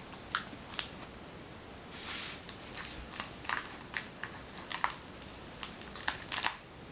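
Crinkling and rustling of packaging being handled by hand, with many small clicks and scrapes and a longer rustle about two seconds in.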